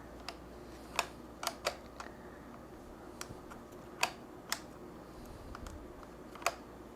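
Irregular sharp clicks and taps of DJI Ronin 4D camera rig parts being handled and fitted together, about a dozen over several seconds. The loudest come about a second in, about four seconds in and near the end, all over a low steady hum.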